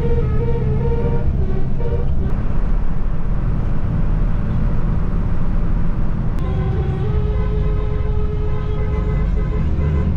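Tour bus telolet horn playing a quick run of musical notes, then sounding again about six seconds in with longer held notes, over the steady low rumble of the bus engine.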